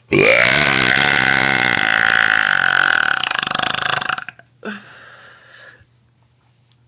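A woman's long, loud belch, about four seconds, held at a steady pitch and breaking into a rattle in its last second.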